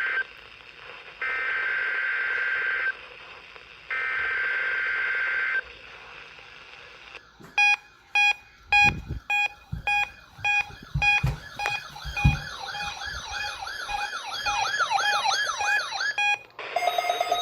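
NOAA Weather Radio SAME data header: three short bursts of warbling digital tones about a second apart. A weather radio receiver's electronic alert alarm then sounds, a repeating pattern of beeps and rising and falling warble tones, with a few low thumps under it and a different bright tone starting near the end.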